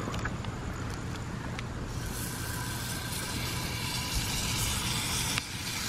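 Raw steak sizzling as it is laid into a hot cast-iron skillet over a campfire; the sizzle starts about two seconds in and keeps going steadily. A steady low rumble sits underneath.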